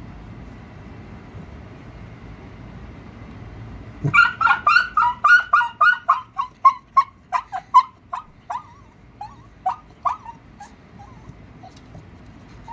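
Beagle-type dog crying in a fast run of short, high yelps, about three or four a second. The yelps slow and fade into sparse faint whimpers: a sign of a dog in distress.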